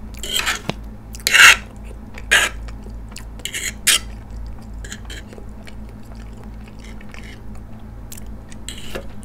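Close-miked eating of ramen noodles: chewing, with a metal fork scraping and clinking on a ceramic plate as the noodles are gathered. A few short loud sounds come in the first four seconds, the loudest about a second and a half in, then it goes quieter.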